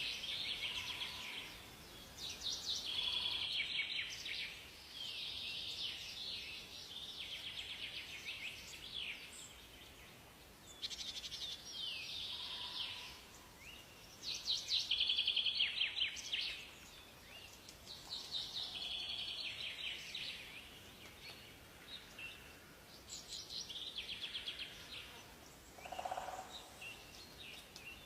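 Songbirds singing in a forest: rapid trilled song phrases repeated every couple of seconds with short gaps, over a faint steady background hiss.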